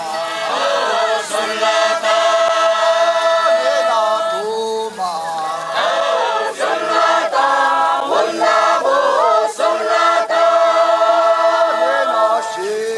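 Unaccompanied group chant: many voices singing together in long held notes that bend at the turns of each phrase.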